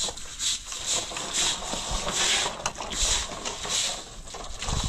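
Stiff broom or brush scrubbing wet yard paving in quick, repeated strokes, a swish about two or three times a second, with an occasional click.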